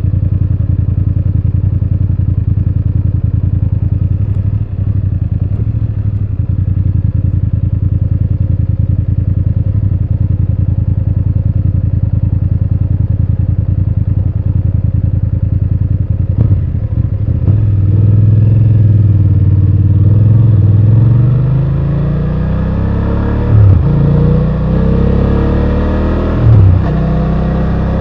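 BMW F800GS parallel-twin engine idling steadily, then revving up about two-thirds of the way through, its pitch climbing over several seconds, with two short, loud breaks near the end that fit gear changes as the bike pulls away.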